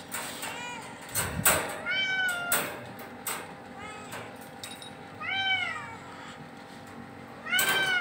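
Cat meowing about four times, each meow rising then falling in pitch, the first one faint. A short thump about a second and a half in is the loudest sound.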